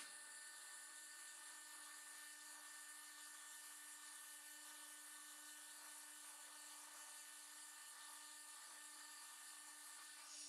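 Faint, steady whine of a homemade forging press's hydraulic gear pump and its 5.5 kW electric motor running while the ram is driven down.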